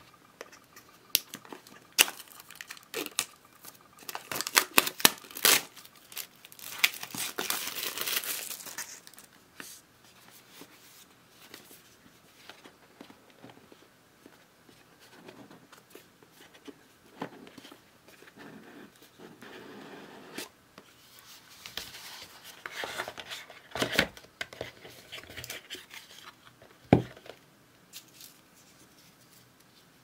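Earbud packaging being opened by hand: sharp clicks and taps, then a stretch of tearing and crinkling about eight seconds in. Later comes lighter rustling, more handling and a sharp click near the end.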